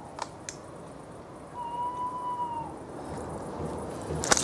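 Electronic carp-fishing bite alarm giving one steady held beep of about a second, with two faint clicks shortly before it.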